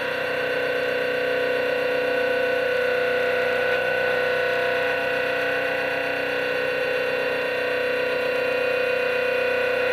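Stepper motors of a lead-screw CNC XY stage running at a very slow feed rate, both axes driven together for a diagonal move: a steady whine of several held tones.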